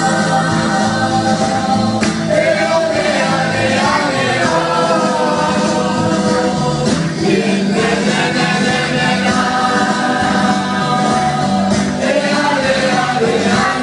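Voices singing a slow, melodic song together, holding long notes that glide between pitches.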